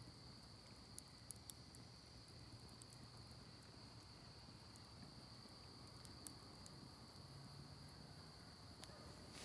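Near silence: a small stick campfire crackling now and then, with a few sharp pops, over an insect's faint steady high-pitched trill.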